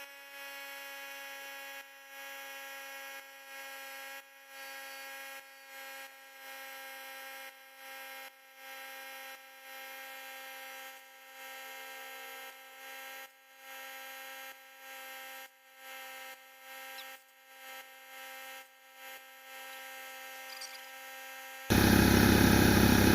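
Portable tire inflator running with a steady hum while airing up a freshly plugged truck tire, its level dipping briefly every second or so. Near the end a much louder rushing noise takes over for a couple of seconds.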